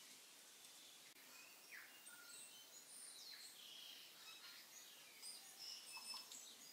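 Faint bird chirping: many short high calls at varying pitches over a low steady hiss.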